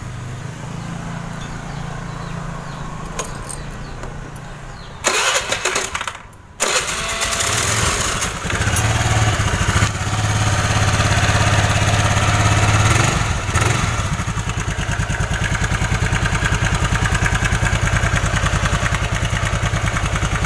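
Honda Vario scooter's single-cylinder engine being started: a loud burst of cranking about five seconds in, then the engine catches and idles steadily with an even low pulse, run to check that the new water pump seal no longer leaks oil.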